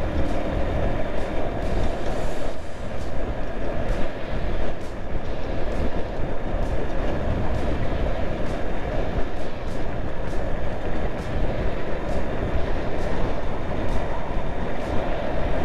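Motorcycle riding at road speed: a steady rumble of engine, tyres and wind rush on the microphone, with faint ticks every second or so.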